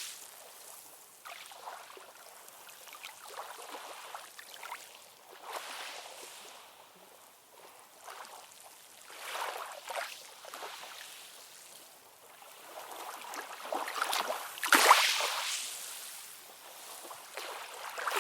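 Ocean waves washing and splashing, a light hiss of water with little deep rumble, swelling in several surges; the loudest comes about fifteen seconds in.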